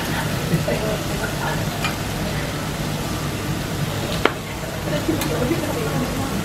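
Kobe beef sizzling on a steel teppanyaki griddle, with light metallic scrapes and clicks of a chef's knife and spatula against the plate; one sharp click about four seconds in. A steady low hum lies under it.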